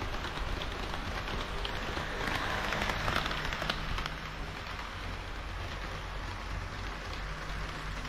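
HO-scale model train of KiHa 40-series diesel railcars running past on the track: a steady rushing rattle of wheels on rail, loudest about three seconds in as the cars pass closest, then easing off.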